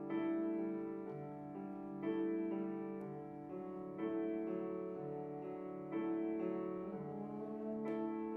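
Grand piano playing slow, sustained jazz chords in a quartet setting, a new chord struck about every two seconds. Near the end a trombone begins to come in.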